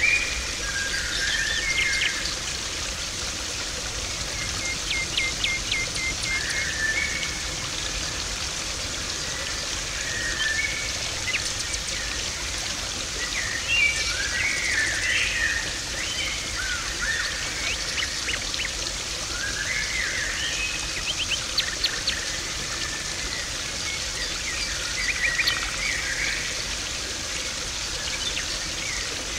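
Steady rushing and splashing of water in a garden pond, with birds chirping and twittering over it.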